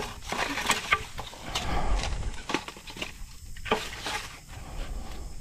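Irregular knocks and rustling from things being handled at camp.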